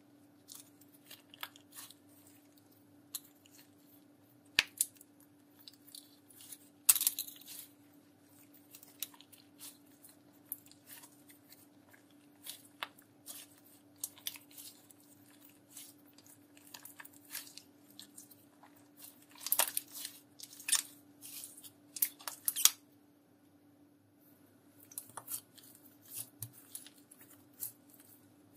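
Hands kneading, squeezing and folding a thick slime mixed with makeup and glitter, giving irregular sticky clicks and small wet pops, with louder clusters of crackling pops about seven seconds in and again later on, then a short lull before the pressing resumes. A faint steady hum runs underneath.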